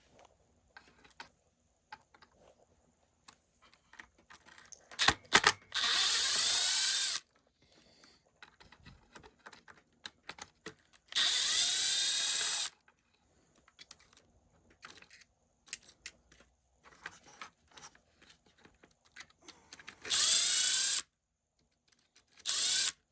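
Power screwdriver running in four short spurts of about a second or two each while backing out the screws that hold an RC truck's ESC. Small clicks and taps come between the spurts.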